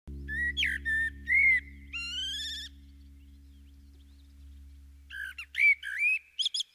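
High whistled, bird-like calls: a few short rising-and-falling notes and a wavering, warbling note, a pause of about two seconds, then another quick run of short notes near the end. A low steady hum sits beneath them and fades out shortly before the end.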